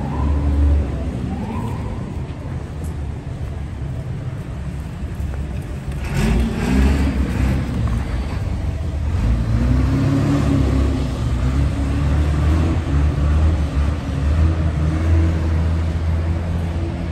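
City street traffic: motor vehicle engines running and passing over a steady low rumble, with engine pitch rising and falling several times.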